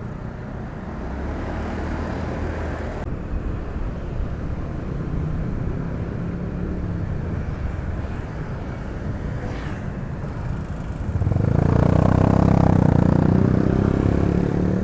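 Motorcycle engine running steadily on the road with road noise. About eleven seconds in, a louder engine swells for a few seconds, then eases off near the end.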